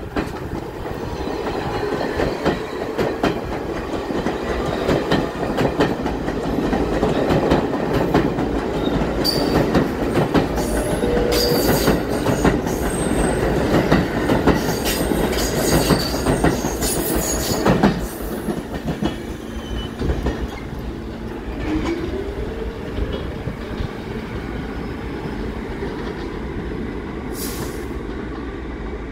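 R46 New York City subway train pulling out past the platform, its wheels clicking over rail joints and squealing. It grows louder for about eighteen seconds, then drops away as the train leaves.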